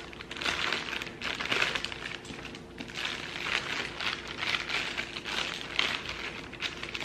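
Crinkling of a plastic sugar-cookie-mix pouch being opened and handled, in a run of irregular rustling bursts.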